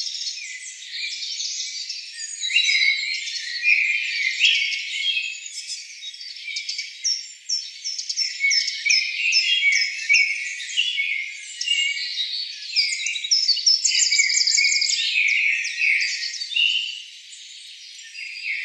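A dense chorus of forest birds, many short chirps and whistled notes overlapping without a break, all high-pitched with nothing low underneath.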